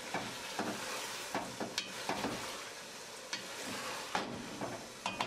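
Keema (minced meat) frying in oil in a pot with no water added yet, sizzling steadily, while a wooden spoon stirs it and scrapes against the pot in irregular clicks.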